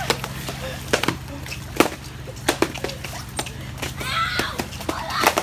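Foam pool noodles smacking against each other, bodies and the water in a pool fight: a quick, irregular string of sharp whacks, with the hardest hits about two seconds in and near the end.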